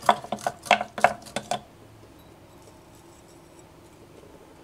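Small spring clips clicking and clattering as they are unclipped from the scale netting and set down on the workbench: a quick run of sharp clicks over about a second and a half.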